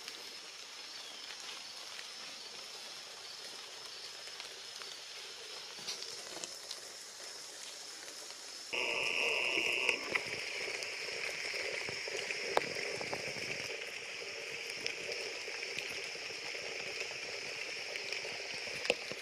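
Steady rain falling on leaves and brush, with scattered sharper drips. It gets louder about nine seconds in.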